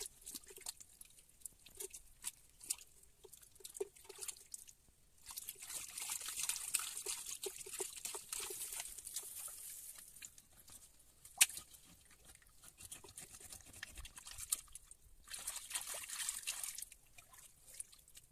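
Water splashing and trickling in two longer stretches, with scattered small knocks and one sharp click about eleven seconds in.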